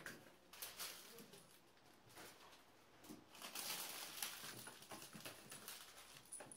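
A cat's claws scratching and scrabbling at a sisal-rope scratching post, in short scrapes and soft knocks, with a denser run of scratching a little past the middle.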